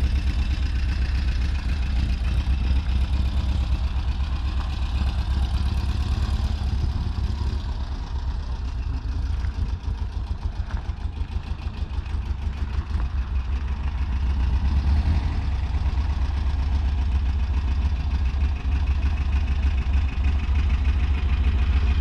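A vehicle engine idling steadily with a deep rumble, dropping a little in level partway through and then coming back up.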